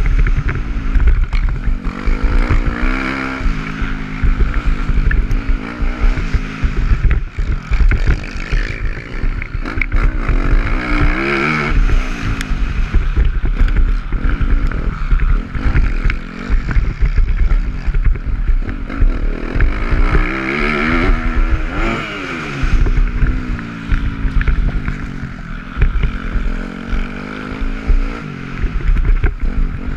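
Dirt bike engine heard from on board, repeatedly revving up and falling back as it is ridden around a motocross track, over a constant low rumble.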